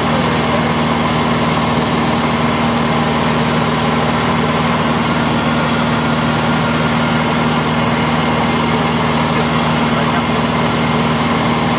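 Cessna 150's Continental O-200 four-cylinder engine and propeller droning steadily in flight, heard inside the small cabin.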